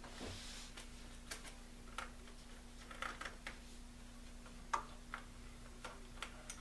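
Light, irregular clicks and taps of wires, parts and tools being handled inside the radio's power supply, the sharpest just before the five-second mark, over a faint steady hum.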